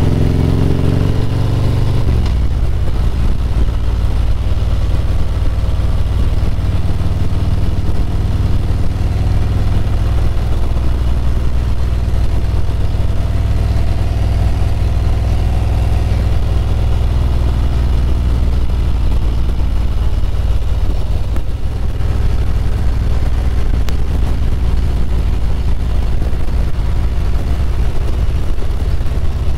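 Harley-Davidson Road Glide's V-twin engine running at a steady cruise, a loud, even low drone with road and wind noise over it. The engine note shifts about two seconds in.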